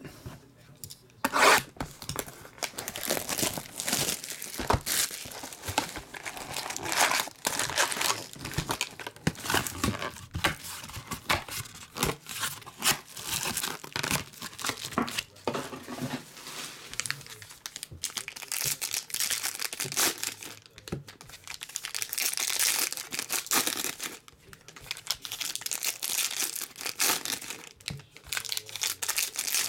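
Foil trading-card packs being torn open by hand, their wrappers crinkling and crumpling in irregular bursts, with one sharp knock about a second and a half in.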